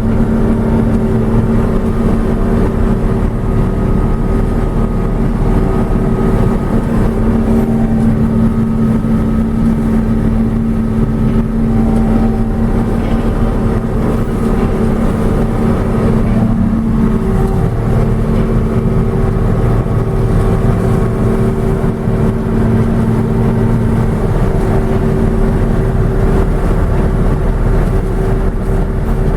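John Deere 6620 sidehill combine running steadily while harvesting corn: an even machine drone with a constant hum.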